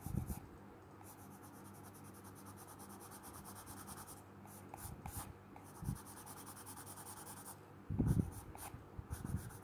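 Graphite pencil shading on textured drawing paper: rapid, even back-and-forth scratching strokes in two long runs. A few soft low thumps come in between, the loudest about eight seconds in.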